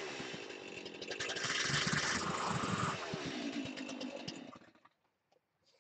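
Two-stroke chainsaw running under throttle as the tip of its bar cuts into a wooden plank, loudest about one to two seconds in. It then drops to a lower idle and dies away to silence a little before the five-second mark.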